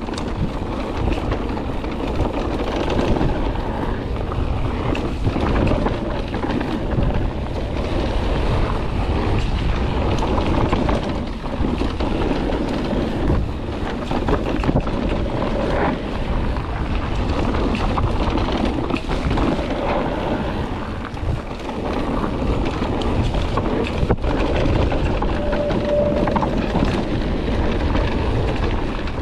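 Mountain bike riding over a rough dirt trail: wind buffets the camera microphone, the tyres rumble steadily, and short knocks and rattles come through now and then.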